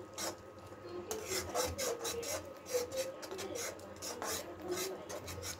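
A metal slotted spatula scraping and stirring thick masala around a kadhai in quick repeated strokes, about three a second. The stirring is constant to keep the freshly added curd from splitting.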